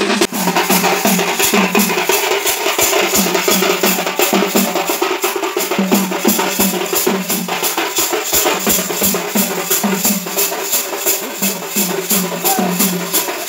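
Traditional South Indian festival drumming: a drum struck over and over, each stroke sliding down in pitch, over a steady quick beat of high, shaken percussion.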